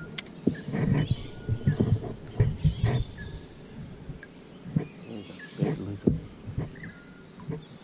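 Irregular knocks, bumps and rustling of the spinning rod and reel being handled close to the microphone, busiest in the first three seconds, with a few short faint high calls.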